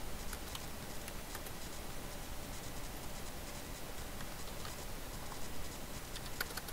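Faint, irregular keystroke clicks of a computer keyboard being typed on, over a steady background hiss.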